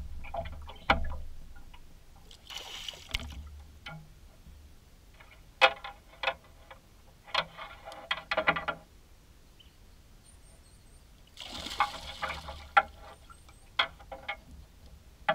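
Water splashing and sloshing at the side of an aluminium boat as a hooked bass is played and scooped up in a landing net, with two louder bursts of splashing and sharp knocks and clicks in between.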